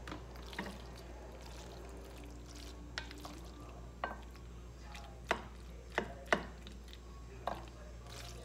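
A wooden spoon scraping and tapping against a bowl as thick cheese sauce is scraped out onto macaroni, with several sharp taps in the middle.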